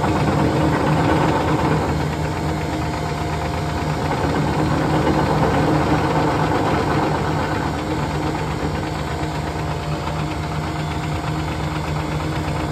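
Frozen custard machine's refrigeration system running: a steady mechanical hum from its compressor and fans, with a few constant tones. The system is running undercharged while R-507 refrigerant is being added to clear bubbles from the sight glass.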